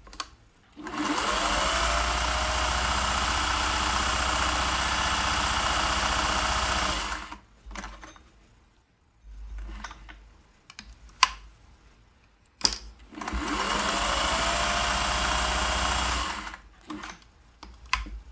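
Vintage Singer 401A sewing machine stitching a decorative pattern: the motor whines up to speed and the machine runs steadily for about six seconds, stops, then runs again for about three and a half seconds. A few sharp clicks come in the pause.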